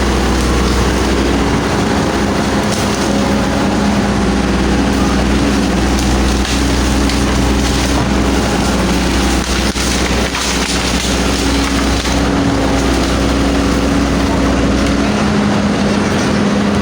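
Hydraulic excavator's diesel engine running steadily under load, with cracking and snapping of bamboo as the machine pushes through a bamboo clump.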